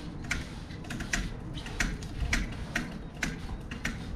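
Avet lever-drag reel ticking unevenly, about three or four ticks a second, as line is pulled off the spool against a set drag during a drag-scale test.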